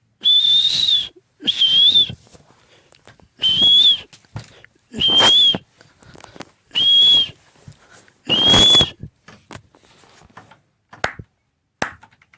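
Six short, high whistles, each held level in pitch for under a second with a breathy edge, repeated about every second and a half, then a few faint clicks.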